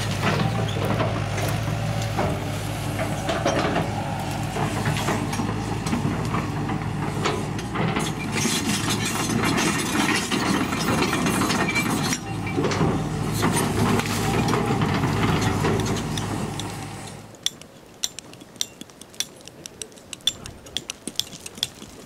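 Excavator's diesel engine running under load with clanking, a steady low hum under mechanical noise. About 17 seconds in it cuts out and gives way to quick, sharp clinks and scrapes of hand tools on rocky soil.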